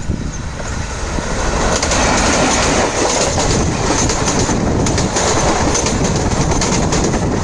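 Electric-hauled express train with blue ICF coaches passing at speed close by: a loud, steady rumble and rush of wheels on rail with scattered clicks from the wheels crossing rail joints. It swells over the first two seconds as the train draws level, then holds.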